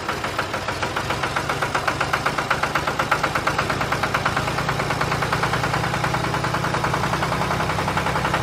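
Tractor engine running steadily with a rapid, even chugging beat.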